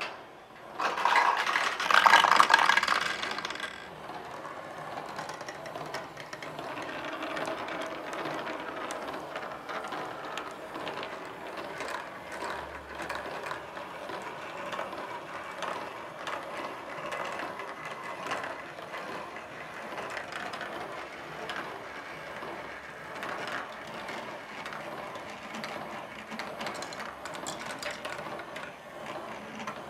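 Marbles clattering and rolling through a 3D-printed plastic marble run. A loud burst of clatter about a second in as a batch of marbles is let go from the start hopper, then a steady rolling rattle with rapid small clicks as the marbles run along the tracks and drop through the funnels.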